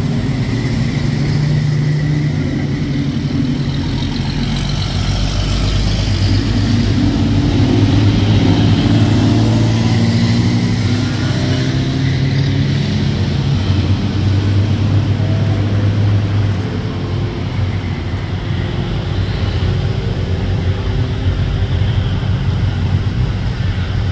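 Road traffic: cars and pickup trucks driving through an intersection with their engines running. In the middle, engine pitch rises as a vehicle accelerates.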